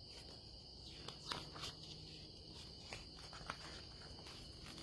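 Crickets trilling steadily and high-pitched in the background, with a few faint soft clicks and rustles.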